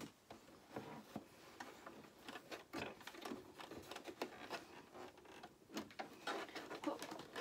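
Cloth rustling with irregular small clicks and taps as fabric is handled and lined up under a sewing machine's presser foot.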